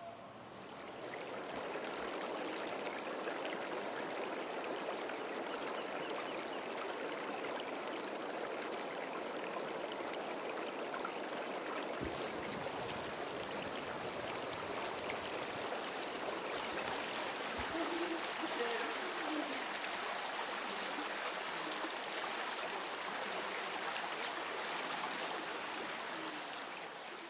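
Water running steadily in a stone-lined irrigation ditch (acequia), fading in over the first second or two and starting to fade out near the end.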